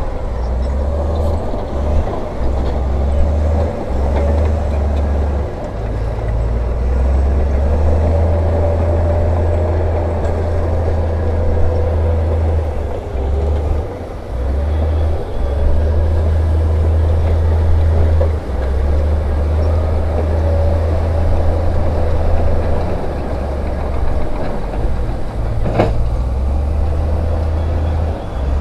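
Heavy diesel earthmoving machine running under load, a deep rumble that rises and falls unevenly, with one sharp clank near the end.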